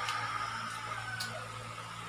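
Faint eating sounds: two short mouth clicks about a second apart, over a steady low hum with a faint higher whine.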